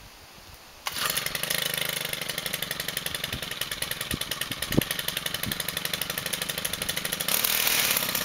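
Two-stroke engine of a Stihl gas pole trimmer catching suddenly about a second in, on its first run, then idling with a fast, even putter. It runs louder for a moment near the end.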